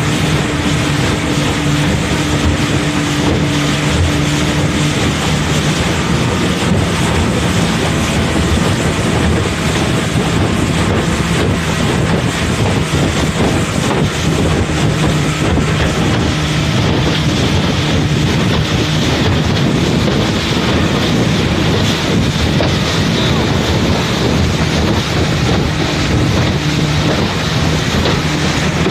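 Engine of a small wooden motorboat running steadily under way, a constant low hum, with wind buffeting the microphone.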